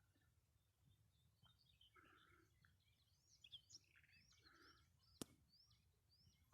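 Faint bird chirping: a quick series of short, repeated chirps, with one sharp click about five seconds in.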